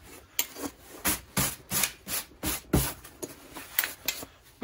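Cast-iron flathead motorcycle cylinder being shifted and handled on a wooden workbench: a string of irregular knocks and scrapes, about three a second.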